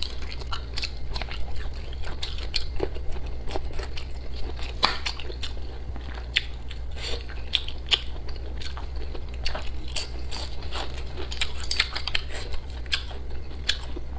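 Close-miked chewing and biting of braised pork: a continuous run of short, wet mouth clicks over a low steady hum.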